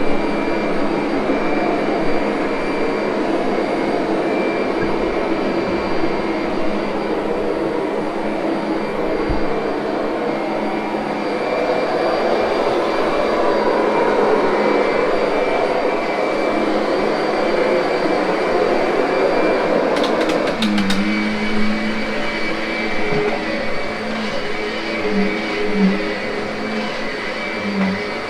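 Kirby upright vacuum cleaner running steadily while grooming carpet: a constant motor whine over rushing air. About two-thirds of the way through the sound shifts, with a few clicks and then a lower hum.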